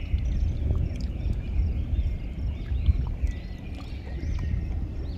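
Outdoor wind rumbling on the microphone, with faint high chirps in the background.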